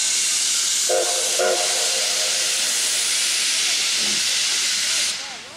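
Steam locomotive 2317, a 4-6-2 Pacific, blowing steam from its open cylinder cocks as it starts a train: a loud, steady hiss that cuts off suddenly about five seconds in as the cocks are closed. About a second in, two short whistle toots are heard over it.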